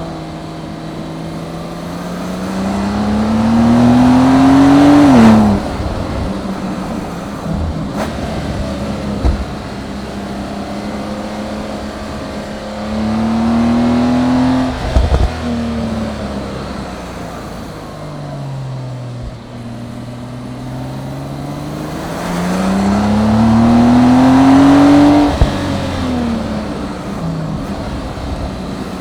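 Porsche 911 Turbo (992) twin-turbo flat-six engine under three hard accelerations. Each pull climbs in pitch and grows louder, then drops off suddenly as the driver lifts or shifts, and settles back to a steady cruising drone between them.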